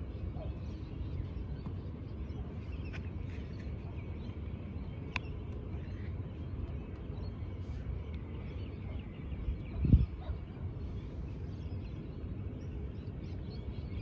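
Steady outdoor wind rumble on the microphone, with faint, scattered bird chirps. A brief low thump stands out about ten seconds in.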